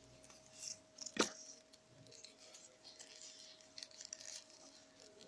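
Faint rustling and crinkling of rolled newspaper tubes being handled and woven by hand, with one sharp click about a second in, over a faint steady hum.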